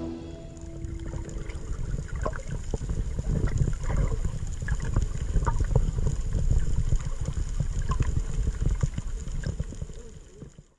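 Underwater sound picked up by a camera in shallow sea water: a steady low rumble of moving water with many scattered sharp clicks and crackles, fading out near the end.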